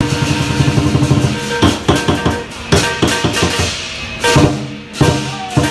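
Lion dance percussion: a Chinese lion drum beating fast with clashing cymbals, then spaced-out loud strikes with cymbal crashes from about a second and a half in.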